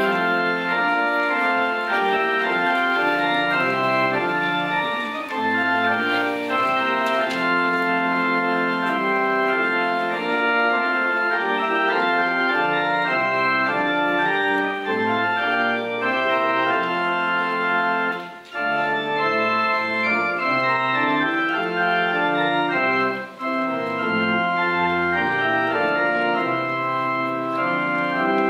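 Organ playing a piece in sustained chords with a moving bass line, broken by two short pauses between phrases about two-thirds of the way through.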